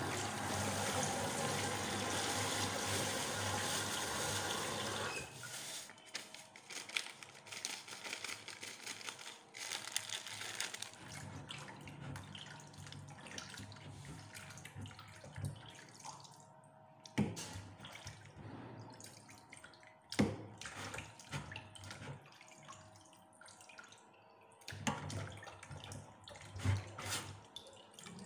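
A kitchen tap runs hard into a stainless-steel sink and is shut off about five seconds in. Then come scattered splashes, drips and light knocks as pieces of meat are washed by hand and lifted dripping into a plastic colander.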